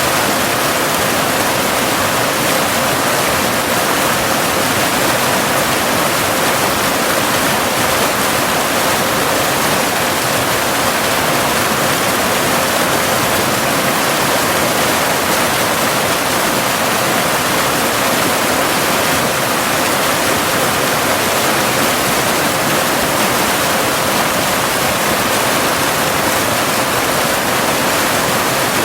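Cascading waterfall: a steady rush of falling water with no breaks. A steady tone sits at about 500 Hz underneath it, the 528 Hz binaural delta-wave tone mixed into the track.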